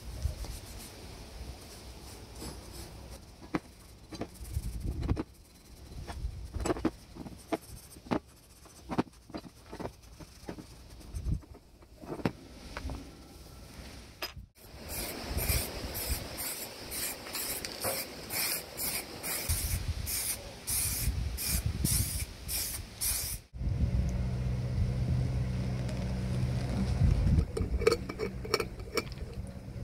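Scissors snipping through a pad of steel wool with scattered crackles, then steel wool scrubbed back and forth over rusty iron screws and bolts in quick scratching strokes, about two or three a second. Near the end a low steady hum comes in while a glass jar with a metal screw lid is handled.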